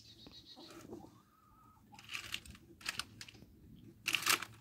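Short bursts of hissing gas as the car's A/C service-port Schrader valve is pressed, letting pressurized refrigerant out. Three brief hisses, the last and loudest near the end.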